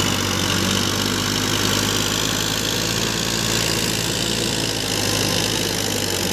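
Massey Ferguson 1035 DI tractor's three-cylinder diesel engine running steadily at an even speed.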